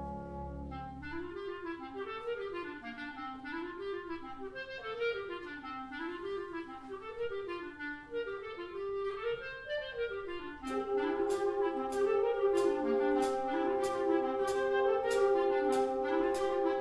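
Concert wind band playing. A low brass chord ends just after the start, and clarinets take over with quick rising-and-falling running figures. About eleven seconds in, the band comes in louder with held chords over a steady beat of sharp percussion strikes, about two a second.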